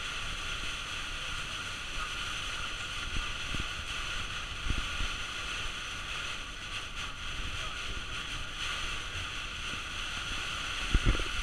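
Heavy rain beating on a Citroën Jumper van's windscreen and roof over steady road noise, heard from inside the cab at motorway speed. A few short low thumps break in, the loudest pair near the end.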